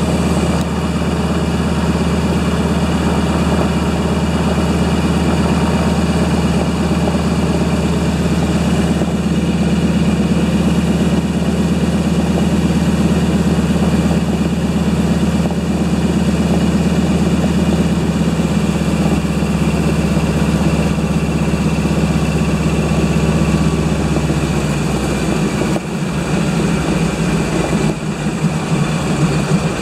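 The engine of a de Havilland Beaver aircraft running steadily. About 26 seconds in, its low tone shifts and turns rougher.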